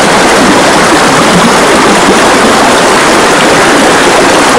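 Drink being drunk from a plastic bottle, heard as a loud, even, watery rushing noise with no breaks.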